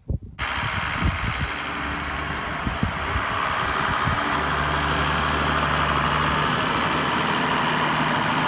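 Farm tractor engine running while it clears deep snow from a driveway, with a steady hiss over the engine note. The engine note settles into a steadier drone about four seconds in.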